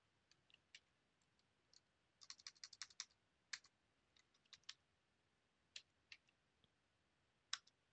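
Faint computer keyboard keystrokes typing a terminal command: a quick run of about ten key clicks a couple of seconds in, then scattered single keystrokes.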